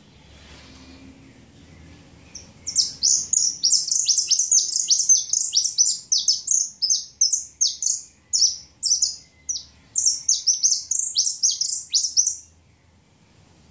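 Caged saffron finch singing its 'chicharreo': a rapid, unbroken run of high, downward-sweeping chirps that starts about three seconds in and stops about a second before the end.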